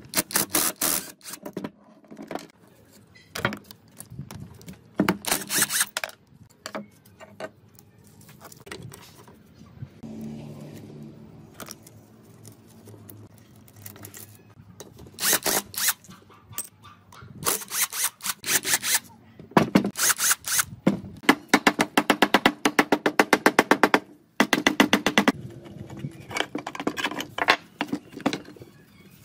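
Several short bursts of rapid hammering from a DeWalt cordless impact wrench loosening nuts on a tricycle's single-cylinder engine, the longest about three seconds long, with clinks and knocks of metal parts between the bursts.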